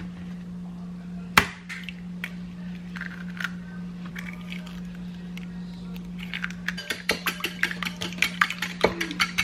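Kitchen utensil knocking and clicking against a bowl: a sharp knock about a second and a half in, a few light clicks, then from about two-thirds through a fast, even clicking of about three to four strokes a second as the muffin ingredients are stirred. A steady low electrical hum runs underneath.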